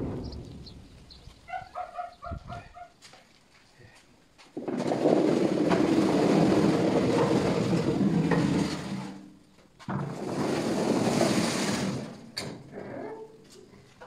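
Potatoes poured from a metal wheelbarrow tumbling into a wooden bin and rolling on a concrete floor: one long pour of about four seconds, then a second shorter one.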